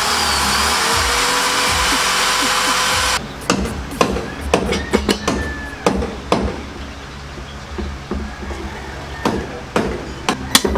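Electric hand drill boring into a steel angle-bar frame, a steady loud whine that stops abruptly about three seconds in. Then a series of sharp metal clicks and snaps as a hand riveter is squeezed to set rivets through the steel frame and mounting plate.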